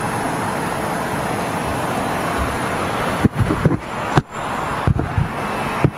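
Steady outdoor roar of distant jet aircraft and road traffic. About three seconds in, wind starts buffeting the microphone, with low thumps and brief dropouts.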